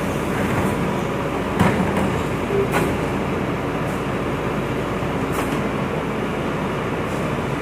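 Volvo FM 370 rear-loader refuse truck's diesel engine running steadily, with a few sharp knocks over it, the loudest about one and a half seconds in.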